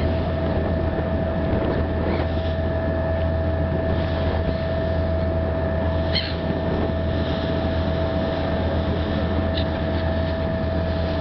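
Car ferry's diesel engine running with a steady low drone and a constant hum tone, over a rush of water and wind. There are a couple of short high gull cries about six and nine and a half seconds in.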